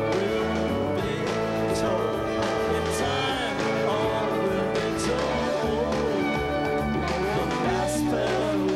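Eight-piece band playing live, a male lead singer singing over guitar, bass and drums.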